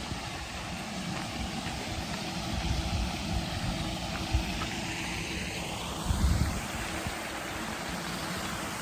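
Steady outdoor background noise, with low gusts of wind rumbling on the microphone now and then.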